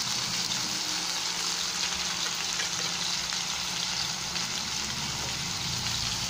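Slices of pork steak frying in hot oil in a pan, a steady sizzle with fine crackling throughout.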